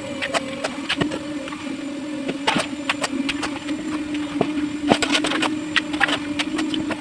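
A machine engine running steadily with an even hum, under irregular clicks and knocks of work on a concrete job.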